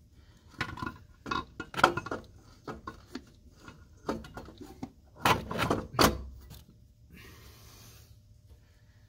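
Irregular metal clunks and knocks of a turbocharger being worked down onto its pedestal on a 7.3 Power Stroke diesel, the loudest a little past halfway. A short rustling hiss follows near the end.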